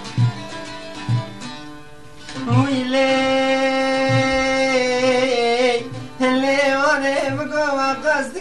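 Kurdish folk song: a plucked string instrument plays low notes, then about two and a half seconds in a male singer holds one long note that wavers at its end and goes on into an ornamented, bending vocal line.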